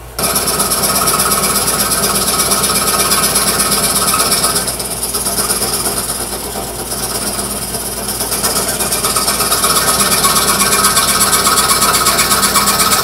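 Scroll saw running, its reciprocating blade cutting out a small wooden butterfly piece for marquetry: a steady, fast chatter that starts abruptly and eases a little for a few seconds midway.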